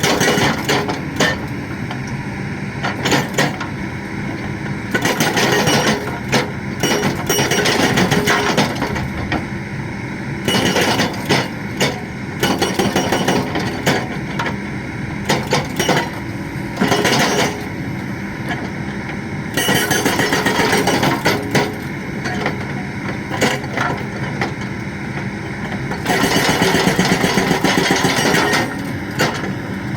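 Hydraulic breaker on a Kobelco excavator hammering in repeated bursts of rapid blows, each lasting one to three seconds, over the steady running of the excavator's engine.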